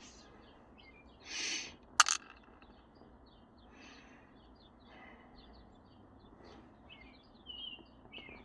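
Small birds chirping faintly over and over. A short rustle comes a little over a second in, then a sharp double click about two seconds in.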